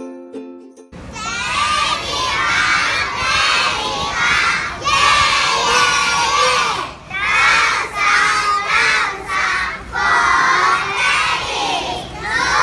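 A large group of young children shouting together in loud bursts with short breaks between them. A snatch of plucked-string music cuts off about a second in, just before the shouting starts.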